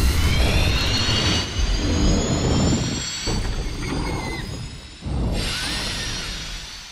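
Sci-fi energy charge-up sound effect: a jet-like whine rising slowly in pitch over a deep rumble for about three seconds. It breaks off suddenly, starts again about five seconds in, and fades away.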